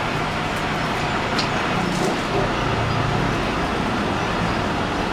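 Arc welding in progress: a steady crackling hiss from the arc, with a low hum underneath.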